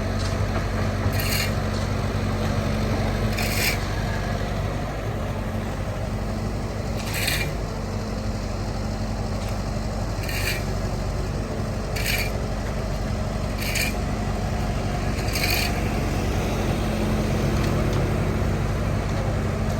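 Excavator's diesel engine running steadily with a constant low hum. Short scraping, hissing sounds come through it every one to three seconds, about eight times.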